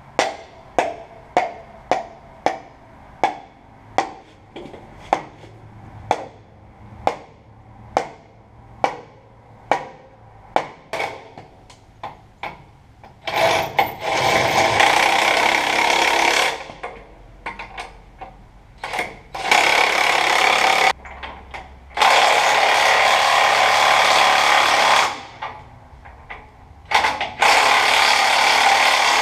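Mallet blows on steel truck suspension hardware, about two a second for roughly twelve seconds. Then a power tool runs in four bursts of one to three seconds each.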